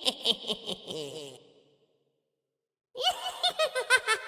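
High-pitched laughter in quick, rhythmic bursts that fades out about a second and a half in, then after a short silence starts again about three seconds in.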